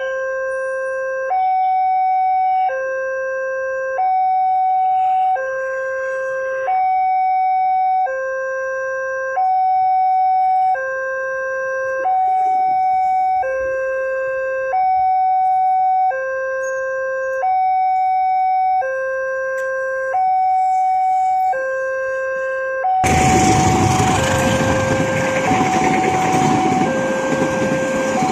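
Level-crossing electronic warning alarm sounding through a loudspeaker: two tones trading places slowly, each held about a second and a half. About 23 seconds in, a passenger train reaches the crossing and its loud running and wheel noise takes over, with the alarm still sounding under it.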